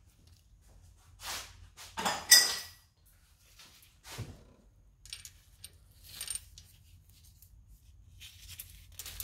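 Toyota 2AZ timing chain rattling and clinking as it is handled, a few separate metallic jangles, the loudest about two seconds in.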